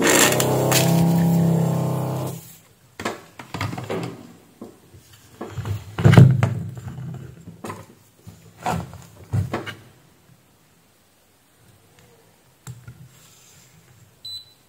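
A steady low hum for the first two seconds or so. Then a string of sharp clicks and knocks from a spring-loaded solder-sucker pump and the circuit board being handled while the main filter capacitor is desoldered and pulled out of a switch-mode power supply board, the loudest knock about six seconds in. A few light clicks of multimeter probes follow near the end.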